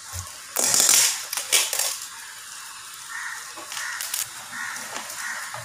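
A paper letter crinkling and rustling as it is pulled off a gift box and unfolded by hand, loudest for about a second and a half near the start, then softer handling rustles.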